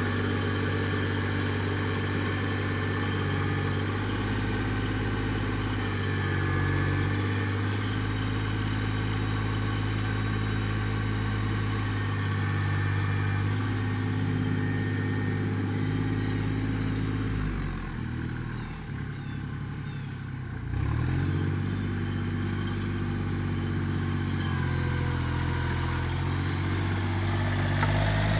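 Kubota L39 tractor-loader-backhoe's four-cylinder diesel engine running steadily while the tractor works dirt with its front bucket. Around two thirds of the way through, the engine drops lower and quieter for a few seconds, then comes back up to its working speed.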